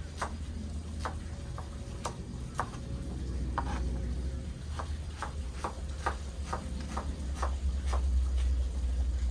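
Kitchen knife slicing shallots on a wooden cutting board: sharp taps of the blade on the board, about two a second and getting a little quicker, over a steady low rumble.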